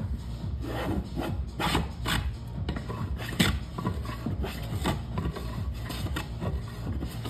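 Hand tool scraping and cutting into wood in a series of short, irregular rasping strokes, as a joint is undercut.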